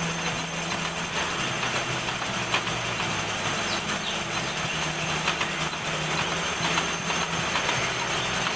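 Milling machine running, its HSS cutter cutting teeth into a steel gear blank: a steady machine hum whose pitch steps between two levels, over the hiss of the cut and scattered sharp ticks.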